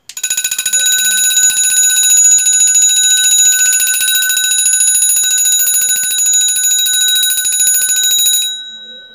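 Homemade electric calling bell: a small DC motor rapidly strikes a bicycle bell dome, giving a fast, continuous metallic trill. It starts suddenly, runs for about eight and a half seconds, then cuts off and the bell's tone fades.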